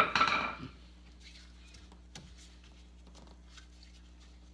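A hammer tapping a tight-fitting neoprene bushing and its metal sleeve into a golf cart's front control arm. One sharp metallic hit right at the start rings off within about half a second, followed by a few faint clicks.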